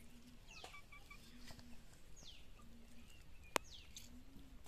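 A bird calling three times, each short call sliding down in pitch, about every second and a half. A single sharp click about three and a half seconds in.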